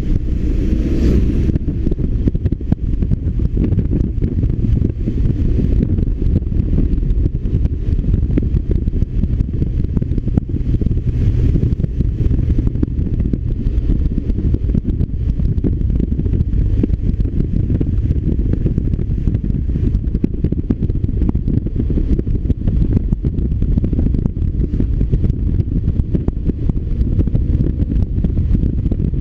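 BMW R1200RT's boxer-twin engine running as the motorcycle rides along, mixed with a steady low rumble of wind on the microphone. A brief brighter rush comes about a second in and again around eleven seconds.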